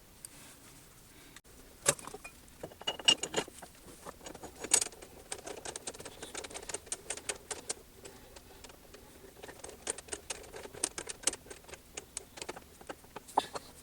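Small metal tools and parts being handled on a workbench: an irregular run of light clicks and clinks with a few sharper knocks. No motor runs.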